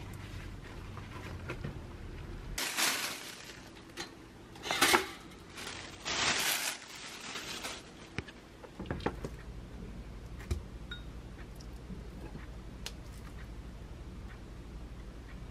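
Kitchen handling sounds while a leftover half bagel is readied for a pop-up toaster: three bursts of crisp rustling in the first half, the longest about six seconds in, then a scattering of light clicks and taps.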